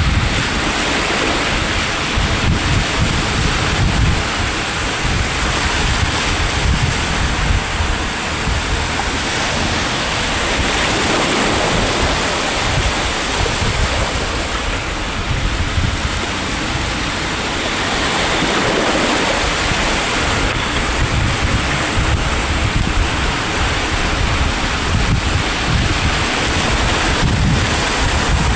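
Sea waves breaking and washing on the shore in a continuous surf, with wind buffeting the microphone in low rumbles.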